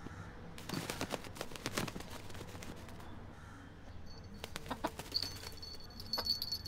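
Rooster flapping its wings and scrabbling on upholstered furniture: a cluster of soft flutters and knocks about a second in. Later come a few light knocks and a faint, thin high tone held for about a second near the end.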